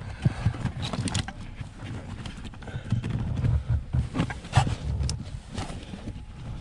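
Wiring harness being pushed and tucked behind car interior carpet: irregular rustling with scattered light clicks and soft knocks.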